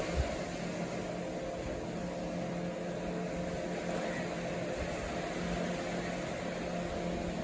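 Steady mechanical hum over a constant rushing noise, with a brief low thump just after the start.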